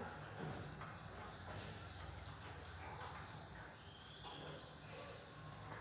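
Small cage birds giving short high chirps: two brief calls about two seconds apart, with a faint low hum under them.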